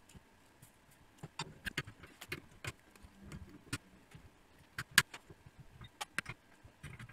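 Irregular small clicks and taps of a soldering iron and a metal pick against circuit board pads while capacitors are desoldered and replaced, the sharpest click about five seconds in.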